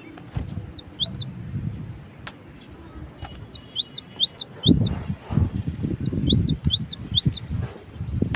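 Cinereous tit (gelatik batu) singing: short runs of sharp, quickly sweeping whistled notes, two near the start and then two runs of about five, over low rumbling and bumping noise.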